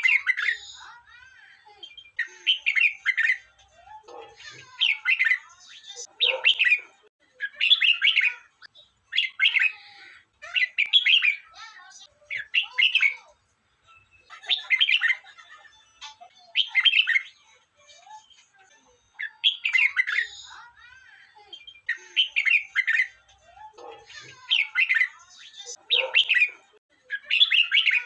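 Red-whiskered bulbul singing: short, clear phrases, each under a second, repeated every second or two.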